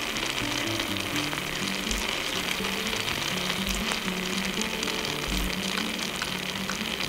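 Egg masala gravy sizzling steadily in a small steel pot over a wood fire, with a few faint taps of a spoon as roasted eggs are added and stirred in.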